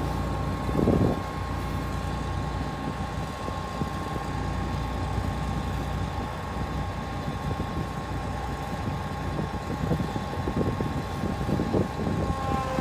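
Harvest machinery engine running steadily, with a low hum and a steady whine, and a brief louder thump about a second in.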